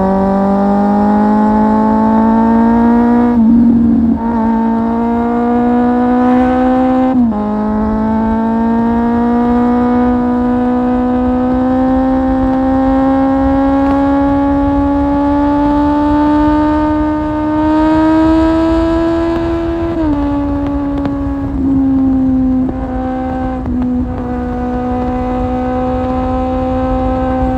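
Kawasaki Z750's inline-four engine through an Akrapovic exhaust, under way and accelerating: the note climbs and drops sharply at upshifts about four and seven seconds in, then rises slowly for a long pull. Around twenty seconds in it drops again and holds fairly steady.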